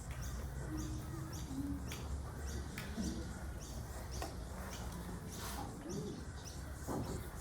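A small bird chirping over and over, short high chirps two or three times a second, over a low background murmur with a few soft knocks.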